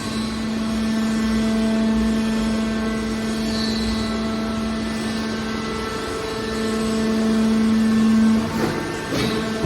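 Mobile scrap metal baler's engine and hydraulic power unit running with a steady, even hum, swelling around eight seconds in. A few knocks come near the end.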